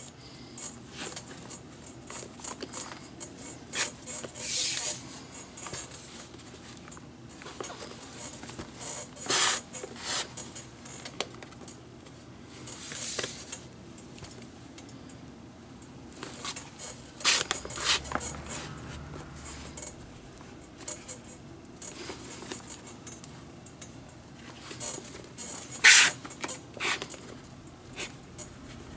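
Leather lace being drawn through the lacing holes of a Mizuno baseball glove during relacing: irregular swishes, rubs and scrapes of lace against leather, with soft handling noises in between and the loudest pull near the end.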